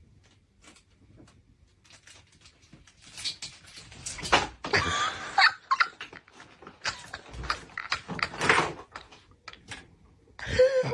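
A pet animal giving a few short cries that waver up and down in pitch, among scattered knocks and rustling.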